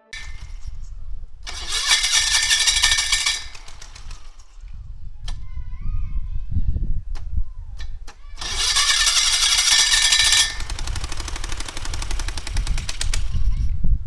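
Electric starter cranking an aircraft's air-cooled V-twin engine in two long bursts, with a few sharp clicks between them. The engine is being started and has not yet caught.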